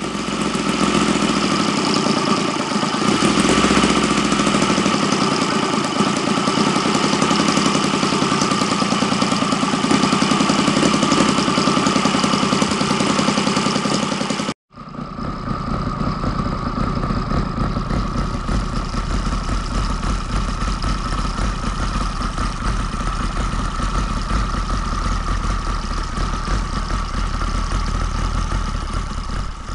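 Saito FA120 R3 three-cylinder four-stroke glow radial model engine running steadily on a test bench, its propeller turning. About halfway the sound drops out for an instant and picks up again with a heavier low rumble.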